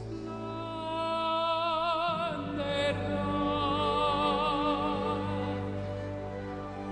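Operatic tenor singing long held notes with wide vibrato over an orchestral backing track, moving to a new note and chord about two seconds in.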